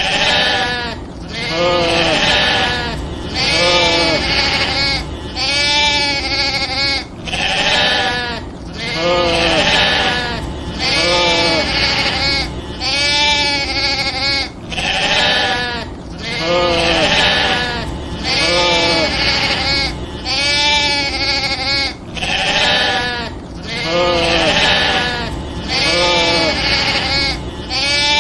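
Sheep bleating over and over, one drawn-out, wavering bleat about every second and a half without a break.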